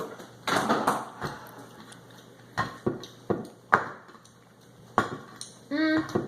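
A few sharp separate clinks and knocks of tableware, such as a utensil or dish tapping on a plate, spread over several seconds, with some handling rustle at the start.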